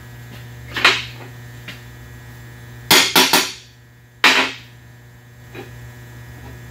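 Metal knocks and clanks as a stainless steel rudder shaft is worked into the notches of a stainless plate and a hammer is handled on a steel table. A light knock comes about a second in, a quick run of three or four knocks about three seconds in, and then one sharp clank that rings on, about a second later. A steady electrical hum runs underneath.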